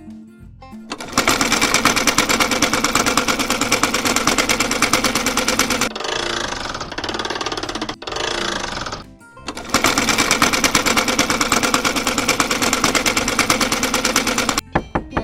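Sewing machine running, a rapid even stitching rattle, in two stretches of about five seconds each with a quieter gap between them, over background music.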